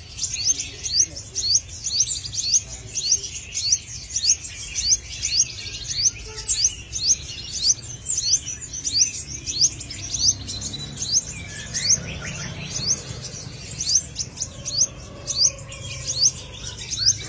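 Black sunbird ('sriganti hitam') calling: a steady series of short, high, sharp chirps at about two a second.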